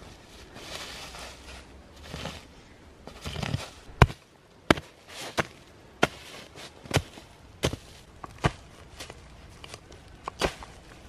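Dry leaves rustling as they are scraped aside. Then a short-handled digging tool chops into the leaf-covered earth in sharp single strikes, about one a second, the first one the loudest.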